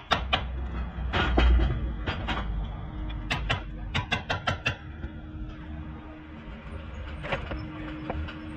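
Sharp metallic clicks and clinks in quick runs, as hand tools work against a car's front brake disc and wheel hub. A steady low hum comes in about a third of the way through.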